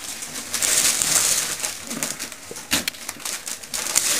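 Gift wrapping paper rustling and crinkling as a present is unwrapped, densest in the first two seconds, then a few sharp crackles.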